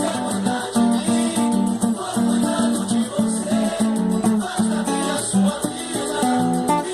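Acoustic guitar playing a rhythmic, strummed accompaniment pattern with a steady run of bass notes.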